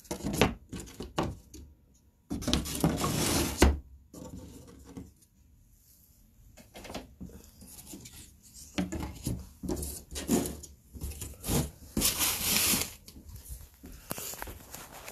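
Thin 1/4-inch Baltic birch plywood fretwork panels being slid and set down on a wooden workbench: irregular light wooden knocks and clatters, with two longer scraping rubs.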